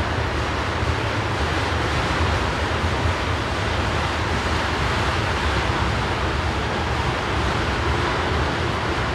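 GE ES44AC diesel-electric locomotive running with a steady low engine rumble under an even rushing noise, with no change in the sound.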